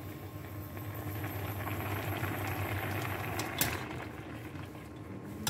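Chicken adobo's soy-sauce braising liquid simmering over low heat in a nonstick pan, a steady bubbling with a low hum underneath. A single sharp clack of a spatula against the pan comes about three and a half seconds in.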